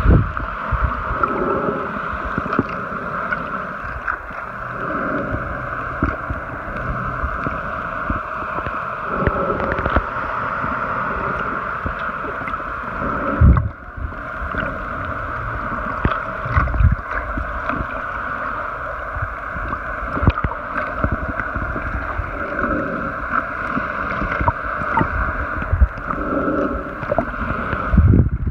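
Muffled underwater sound picked up by a camera held below the surface: a steady hiss and gurgle of water, broken by a few dull knocks, the loudest about halfway through and again near the end.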